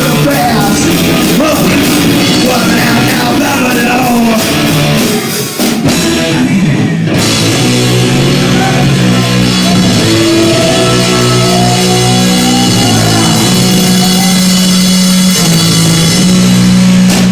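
A live rock band plays loud, with drum kit, guitars, bass and a singer, distorted by an overloaded phone microphone. About six seconds in, the cymbals and highs drop out briefly. Then the band comes back in on long held notes.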